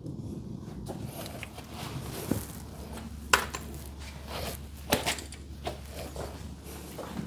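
Scattered metallic clicks and clinks of hardware and tools being handled, a few sharper knocks among them, over a low steady hum.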